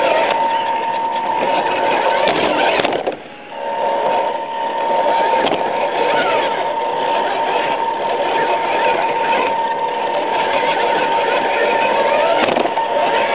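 Electric motors and gearboxes of radio-controlled rock crawlers whining steadily under throttle, with the pitch shifting as the trucks speed up and slow. The sound drops away briefly about three seconds in.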